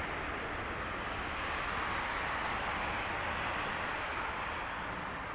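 Airbus A330-200 airliner's jet engines running at low power as it rolls slowly along the runway after landing: a steady, even rush of noise without clear tones.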